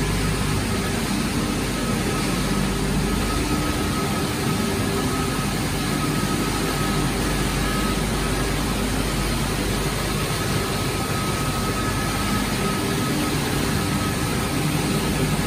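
Wood-pellet production line running: the combined noise of its motors, fans and conveyors, steady and loud, with a steady high whine over a low hum.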